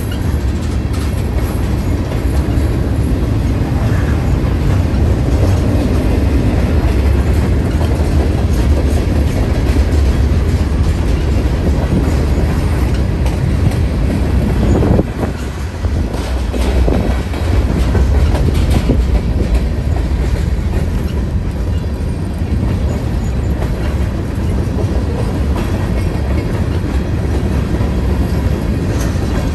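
Norfolk Southern freight train's cars rolling past at close range: a loud, steady rumble of steel wheels on the rails.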